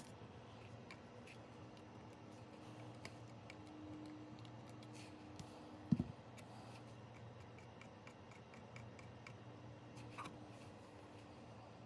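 Faint scattered clicks and light taps of small tools handled on a workbench circuit board, with one sharper knock about six seconds in, over a faint steady hum.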